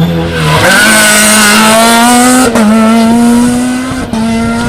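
Rally car engine under hard acceleration, climbing in revs. The pitch drops about two and a half seconds in as it changes up a gear, and there is another short dip near the end.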